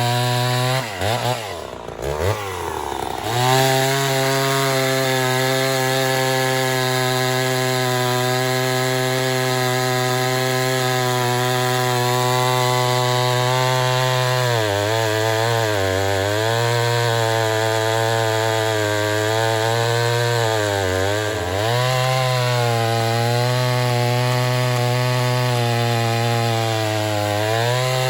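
Ported Poulan 245A two-stroke chainsaw with a 28-inch bar running at full throttle in big hardwood. After a quick drop and rev early on, it holds a steady high pitch, sagging briefly under load a few times as the unsharpened, dull chain bogs in the cut.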